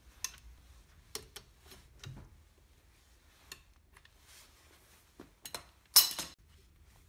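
Long wrench and socket on the lug nuts of a car's steel wheel: scattered metallic clicks and clinks as the nuts are worked. A louder metal clank near the end.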